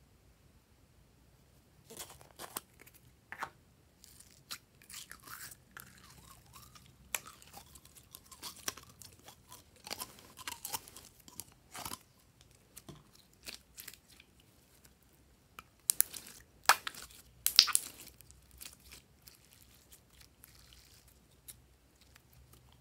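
Glossy slime being squished and stretched by hand, giving sticky crackles and small wet pops. The crackles are loudest in a burst a few seconds before the end.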